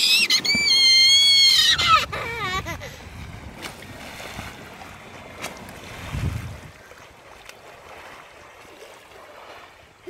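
A person's long, high-pitched yell, held level and then falling and wavering, as a man dives face-first into shallow seawater with a big splash. After that come quieter splashing and sloshing water, with a heavier splash about six seconds in.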